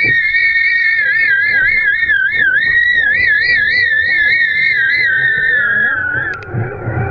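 A high whistle of wind over the airborne kite line and camera rig, its pitch wobbling up and down about two to three times a second, then sliding lower and fading near the end.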